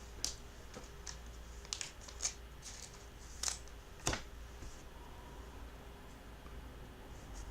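Trading cards being handled: about six short, light clicks and rustles of card stock in the first four seconds, then only faint handling.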